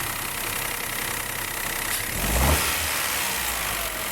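Peugeot 208 1.2 three-cylinder engine idling, with a brief rev about two seconds in that settles back. There is no whine: the front-of-engine components have been renewed and the belt tensioned.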